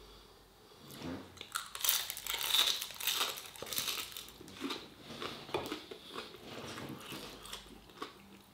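Crunching bites into crispy fried food, then crackly chewing with the mouth close to the microphone. The loudest crunches come about two seconds in and taper into softer chewing toward the end.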